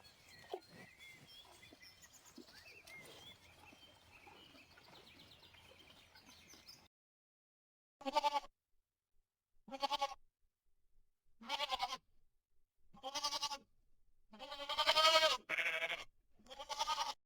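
Goat bleating: after a stretch of faint background noise and a short pause, about seven wavering bleats come roughly one every second and a half. The longest and loudest bleat is near the end.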